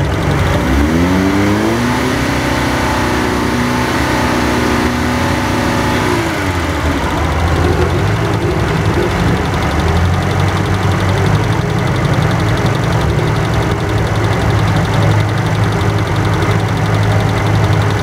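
A vintage sports car's engine is revved up about a second in and held at raised revs for a few seconds for a noise test. It then drops back about six seconds in and settles to a steady idle.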